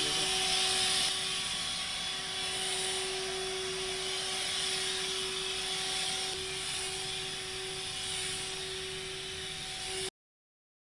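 Motorized backpack disinfectant sprayer running, a steady hiss of mist from the nozzle over a constant motor whine. It cuts off suddenly near the end.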